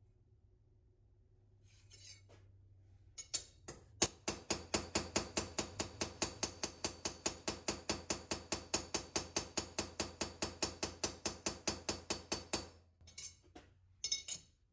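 Carbide straightening hammer tapping rapidly on a hardened Magnacut steel knife blade, about four or five ringing metallic strikes a second for around nine seconds, peening the blade to work a banana-shaped warp out of it. A few light clinks follow near the end as the blade is set down.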